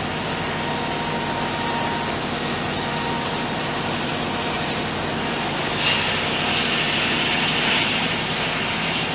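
Steady engine noise from heavy machinery, with a louder high hiss coming in about six seconds in.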